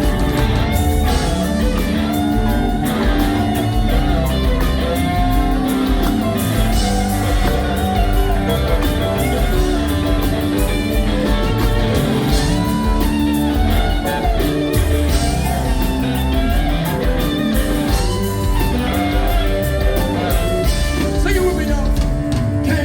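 Live rock band playing an instrumental passage, an electric guitar leading over bass and drums.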